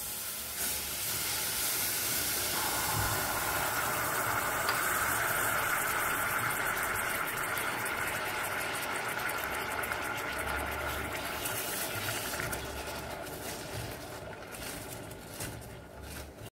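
Lemon juice and sugar sizzling in a hot stainless steel pot, a steady hiss that slowly fades as the sugar melts into syrup. A wooden spoon scrapes in the pot near the end.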